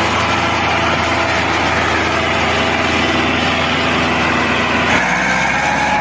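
A small engine running steadily, with an abrupt change in its tone about five seconds in.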